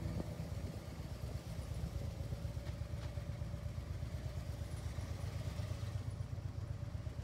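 Harley-Davidson V-twin motorcycle engine running steadily at low speed, a fast low pulsing rumble.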